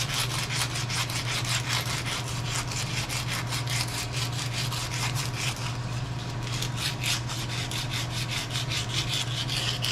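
Strip of emery cloth rubbed back and forth on a metal handle, fast even scraping strokes about five a second, over a steady low hum.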